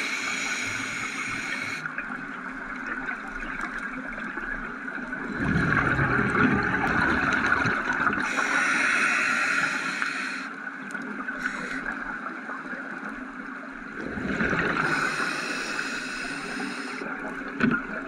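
Scuba diver breathing through a regulator underwater. A hissing inhale alternates with a low rush of exhaled bubbles, the cycle repeating slowly, about every six to seven seconds.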